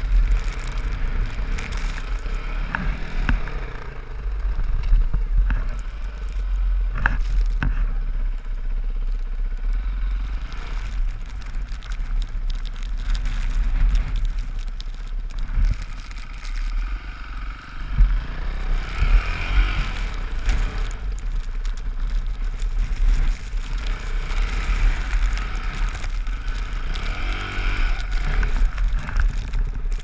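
Dirt bike engine running as it rides through snow, under a heavy steady rumble of wind on the helmet-mounted microphone.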